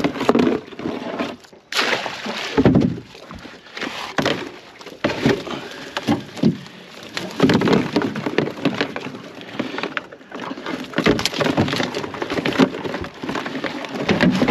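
Irregular clattering, knocking and scraping as a collapsible crab pot is handled and emptied, with mud crabs' hard shells and claws knocking against a plastic tub.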